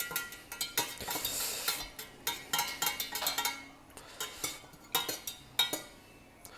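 A spoon stirring salt into water to dissolve it for pickle brine, clinking irregularly against the container with a short swishing stretch about a second in.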